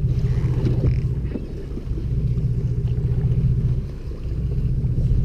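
Fishing boat's engine running with a steady low hum.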